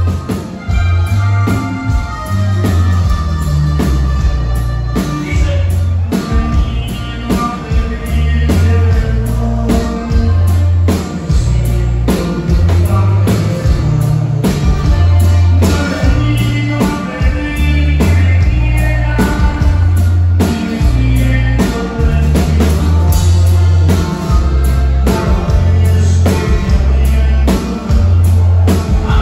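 Live norteño band music: a bass line and drum kit keep a steady dance beat under melodic lines from accordion and guitars.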